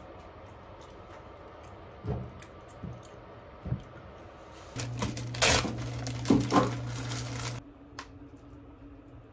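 A pot lid is set onto a pot and clinks sharply a few times against its rim, over a steady low hum that cuts off abruptly near the end. A few soft knocks come before it.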